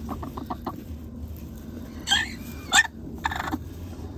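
A domestic hen sitting on the nest clucks in a quick run of short notes, then gives two sharp squawks about two seconds in, the second the loudest. A rustle of hay as a hand works in the nesting box follows shortly after.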